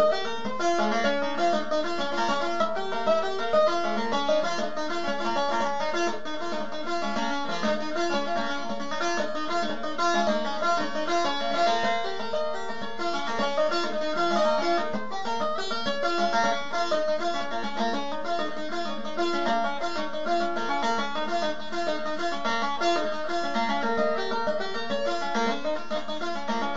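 Bağlama (Turkish long-necked saz) played in şelpe style, the strings plucked and struck with the fingers instead of a plectrum: a continuous, fast run of notes.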